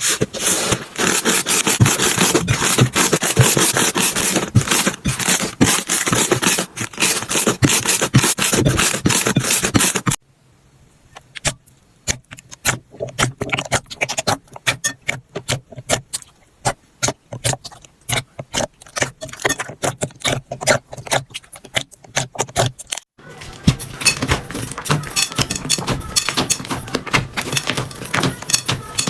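Slime being squeezed and pressed by hand: a dense crackle of small pops and clicks. About ten seconds in it turns sparse and quieter, and near the end it is dense again.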